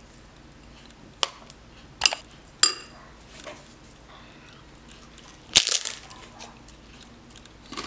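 A metal spoon clicks against a ceramic bowl three times while scooping guacamole. About five and a half seconds in comes one loud crunch as a crisp fried corn tostada is bitten into.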